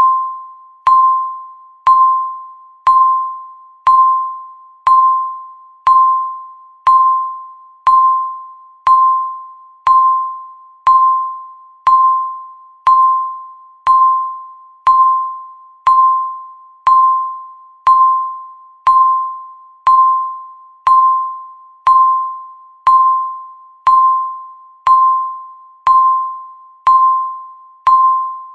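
Countdown timer's tick sound, once every second: each tick is a sharp click with a bell-like ringing tone of the same pitch that fades away before the next one.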